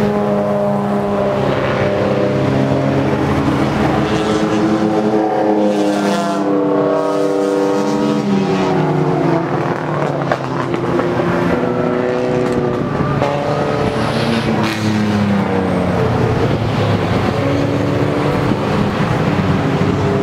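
Several race cars going through a corner one after another, their engines overlapping and rising and falling in pitch as they slow for the turn and accelerate away.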